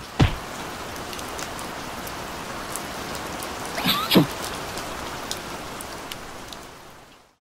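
Steady rain sound, heavy and even, fading away near the end as the umbrella stops the rain. A thump at the start, and a short pitched cry about four seconds in.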